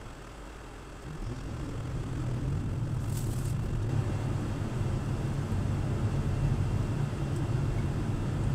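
Engine and tyre noise of a car driving, heard from inside its cabin: steady and low, getting louder about a second in as the car speeds up. There is a brief hiss about three seconds in.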